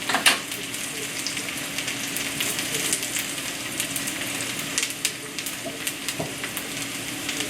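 Cornstarch-coated rice patties pan-frying in hot vegetable oil over medium-low heat: a steady sizzle with fine crackles, one sharper crack just after the start. A faint steady hum runs underneath.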